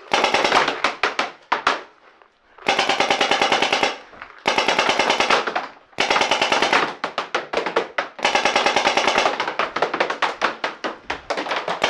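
Paintball markers firing rapid strings of shots, several long bursts of fast fire separated by brief pauses.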